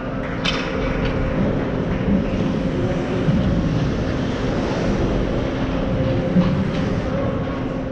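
Ice hockey rink ambience during play: a steady arena hum with a few sharp knocks, one about half a second in and another near the end.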